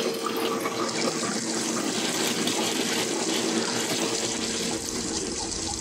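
Kitchen tap running steadily into a sink as dishes are washed by hand.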